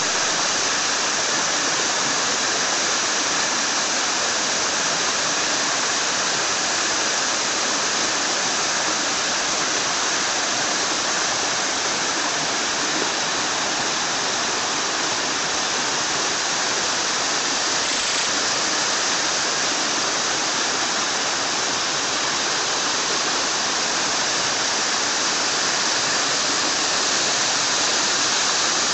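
Small waterfall splashing down a rock face into a woodland stream: a steady, even rush of falling water.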